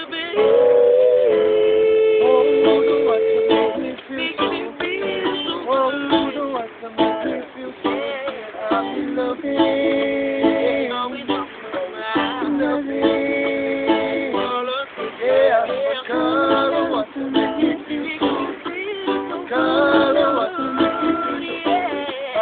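Acoustic ukulele playing an instrumental passage of a Hawaiian-style jam, with plucked melody lines over strummed chords.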